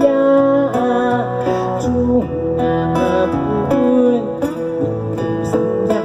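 Live amplified folk music: a round-bodied moon guitar plucked and strummed through a PA.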